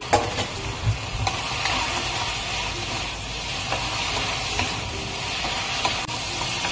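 Chicken and mushrooms sizzling in butter in a frying pan while being stirred, with a sharp knock just after the start and a few lighter scrapes and clicks on the pan.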